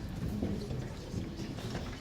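Indistinct murmur of several people's voices talking in a room, with no clear words.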